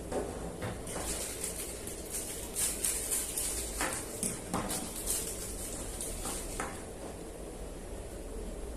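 Scattered light clicks and rustles of plastic action-figure parts being handled as alternative faces are taken out and swapped, over a steady background hum and hiss.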